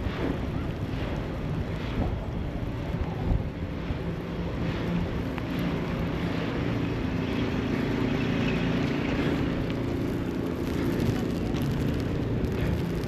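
City street ambience: a steady rumble of traffic, with a vehicle engine hum that grows a little stronger in the middle, and faint regular footsteps of someone walking.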